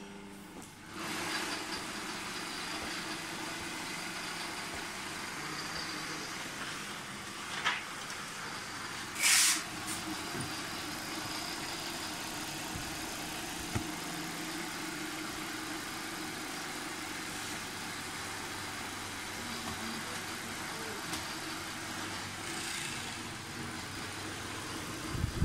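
Mattress tape edge sewing machine running steadily as it stitches binding tape around a mattress edge: an even mechanical drone with a constant hum. A short, loud burst of hiss comes about nine seconds in, with a few faint clicks.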